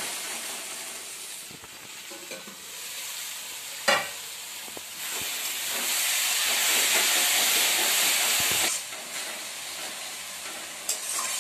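Cabbage and fish-head curry sizzling in a steel kadai while a spatula stirs and scrapes it. There is a sharp metal clank about four seconds in. The sizzling grows louder from about five seconds and drops off suddenly a little before nine seconds.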